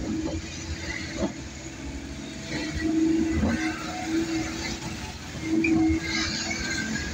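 Car driving on a city street, heard from inside the cabin: a steady engine and road drone with a constant low hum that swells louder twice.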